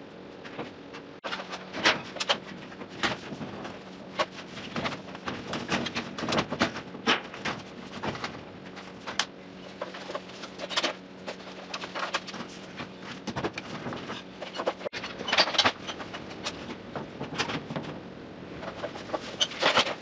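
Irregular knocks, taps and clatters of a corrugated metal ceiling panel being jiggled up into place on a drywall lift, with the aluminium stepladder clanking now and then, over a steady low hum.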